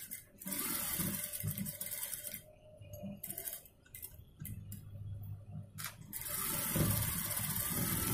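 Industrial single-needle sewing machine running in two stitching runs, briefly about half a second in and again from about seven seconds on, with a few sharp clicks from the machine and fabric handling in the pause between.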